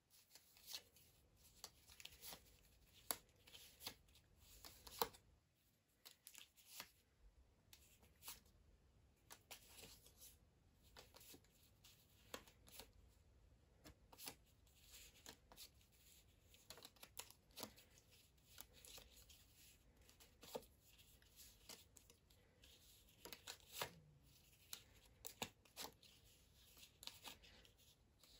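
Faint, irregular rustles and soft taps of paper flashcards being handled one at a time, slid off a small stack and laid down on a wooden table.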